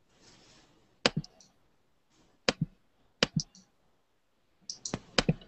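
Sharp clicks from a computer being operated, single and in quick pairs, with a run of several close together near the end. These are the clicks of navigating between windows.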